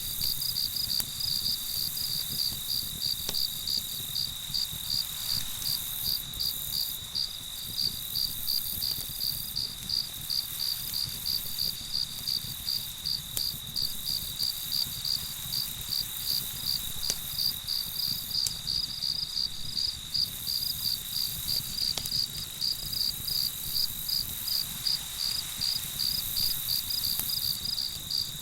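Crickets chirping in an even rhythm of about three chirps a second over a steady high trill, with a low background rumble and a few faint isolated snaps.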